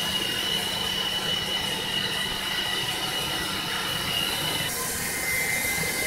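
iRobot Roomba 880 robot vacuum running on a hardwood floor: a steady whirring of its vacuum motor and brushes with a thin high whine, the whine shifting abruptly to a lower pitch near the end.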